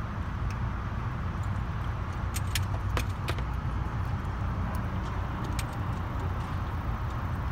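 Steady low rumble inside a car's cabin. From about two to three and a half seconds in come a few sharp clicks and metallic clinks, as a dog chews a stick treat in a wire crate.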